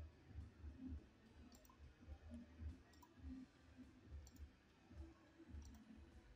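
Near-silent room tone with a handful of faint computer mouse clicks, spaced a second or so apart.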